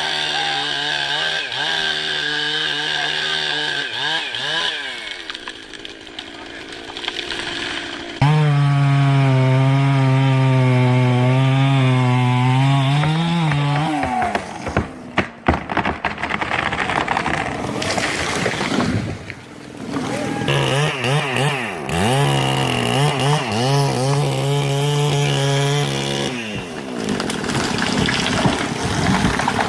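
Chainsaw engine running and cutting wood, its pitch sagging and recovering as it works. The sound changes abruptly several times, a few seconds apart.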